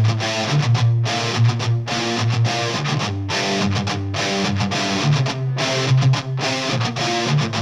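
Background music: rock with distorted electric guitar over a strong bass line and a steady beat.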